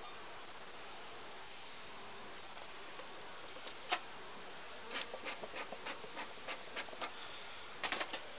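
A honey bee colony buzzing steadily from an open hive, with a single sharp click about four seconds in, then a run of quick clicks and taps, and a short cluster of them near the end.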